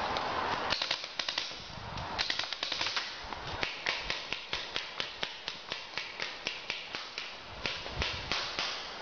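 Paintball markers firing: a rapid run of sharp pops, in ragged volleys at first, then a steady string of about three shots a second.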